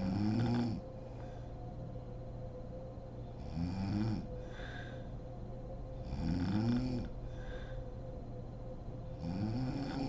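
A sleeping woman snoring: four pitched snores about three seconds apart, each rising and falling in pitch and followed by a softer breath, over a faint steady hum.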